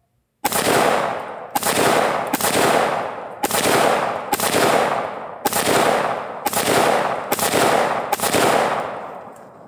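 BCM Recce-16 AR-15 rifle firing nine 5.56 rounds in slow, steady semi-automatic fire, about one shot a second. Each shot echoes and dies away before the next.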